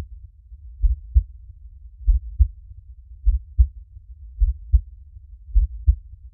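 A slow, steady heartbeat: paired low lub-dub thumps repeating about every 1.2 seconds, roughly fifty beats a minute, five beats over a faint low rumble.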